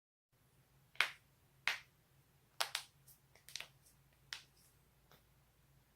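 A person's joints cracking: a string of sharp, dry pops, about eight in five seconds, irregularly spaced, some in quick pairs.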